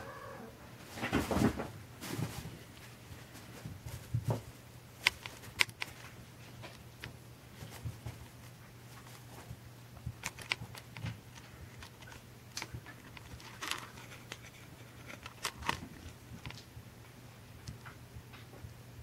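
Soft rustles and light clicks of a Norwegian Forest Cat kitten moving and pawing on a fabric cushion and blanket, louder about a second in, over a faint low steady hum.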